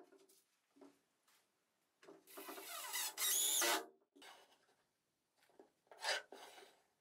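A wooden box-stool scraping and rubbing against the wooden tabletop for about two seconds, with a brief friction squeal in the middle. Near the end, a pencil scratches a line on plywood along a metal square.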